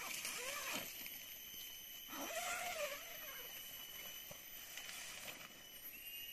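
Forest insects trilling steadily at several high pitches, with two animal calls that rise and fall in pitch, one near the start and one about two seconds in.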